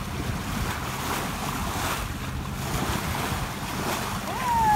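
Water rushing past a sailboat's hull as it moves under way, with wind on the microphone. Near the end a short whistled note rises sharply, then glides slowly down.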